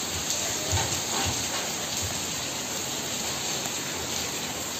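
Heavy rain falling, a steady even hiss, with a couple of soft low thumps about a second in.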